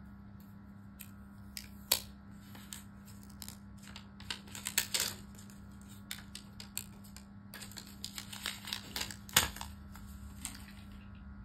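Paper wrapping and cardboard packaging of a charging adapter being unwrapped and handled: irregular crinkling, rustling and small taps, with the sharpest crinkles about two, five and nine and a half seconds in.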